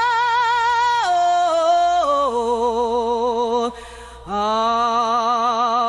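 A single voice singing the wordless "oh, ah" chorus of a gospel ballad: long held notes with a wavering vibrato, stepping down in pitch about a second and two seconds in. The voice breaks off for a breath about four seconds in, then slides up into a new held note.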